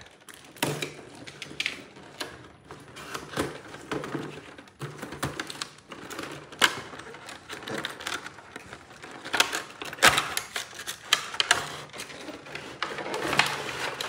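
Cardboard box being cut open with a box cutter and its contents pulled out of clear plastic packaging: irregular sharp clicks, scrapes and crinkling of cardboard and plastic, busiest near the end.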